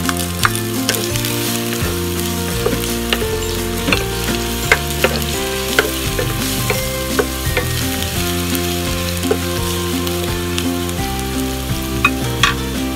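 Minced garlic and shredded aromatics sizzling in hot oil in a nonstick pan, with frequent small pops and the scrape of a wooden spatula stirring them.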